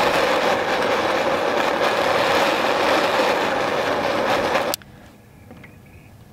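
Handheld butane jet torch burning with a steady loud hiss as it heats a hook's wire, shut off abruptly about three-quarters of the way through.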